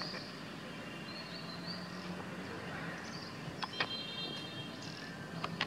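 Forest ambience: a steady background hiss with short, high chirps scattered throughout, and a few sharp clicks about two-thirds of the way through and again near the end.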